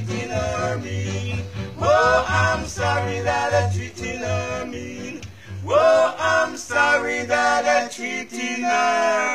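Three men singing together over backing music with a pulsing bass line and guitar; the bass stops near the end, leaving the voices.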